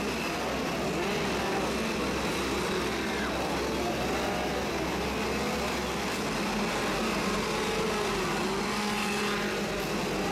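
Chainsaw engines running and revving, their pitch rising and falling again and again.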